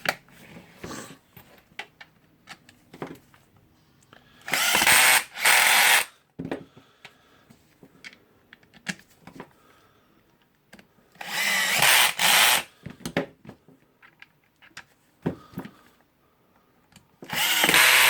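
Power screwdriver driving screws in three short runs of about a second each, the first two stopping briefly partway through, with small clicks and handling knocks in between as the rotary hammer's back cover is screwed on.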